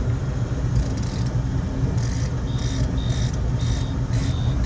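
Low steady rumble of the boat's engine while trolling. Over it, from about a second in, comes a regular high clicking about twice a second, with a thin beep-like tone in several of the clicks.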